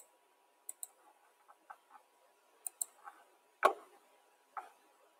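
Faint computer mouse button clicks, several quick press-and-release pairs, with a louder knock about three and a half seconds in and a softer one about a second later.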